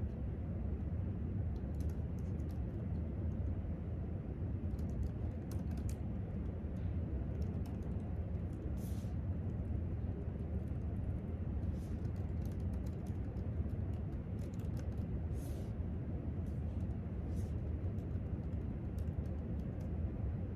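Typing on a laptop keyboard: scattered clusters of key clicks, with a couple of brief swishes in between, over a steady low room rumble.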